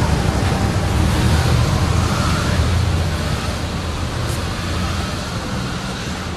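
Steady outdoor street noise, a broad rush over a low rumble, slowly fading.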